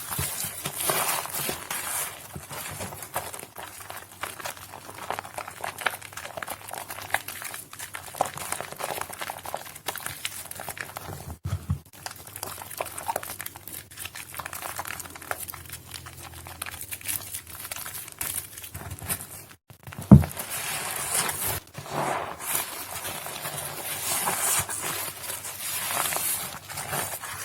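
Soaked Nuvo bar soap being squished by hand: a dense, crackly, wet crunching, with one sharp thump about two-thirds of the way through.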